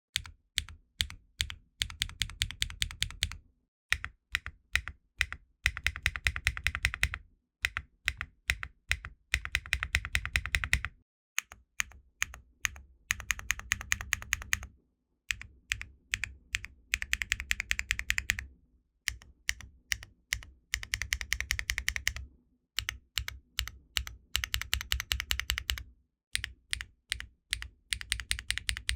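Typing on a custom mechanical keyboard with HMX Meteor linear switches: a gasket-mounted Qwertykeys Neo65 Core Plus in an aluminum case, with no foam and ABS Cherry-profile keycaps. Bursts of fast keystrokes are broken by short pauses, with stretches of slower, separate key presses between them.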